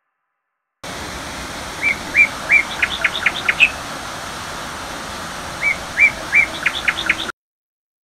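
Steady rushing of a tall waterfall, with a songbird singing the same short phrase twice over it: three rising notes, then a quick run of sharp high notes. The sound starts suddenly about a second in and cuts off just before the end.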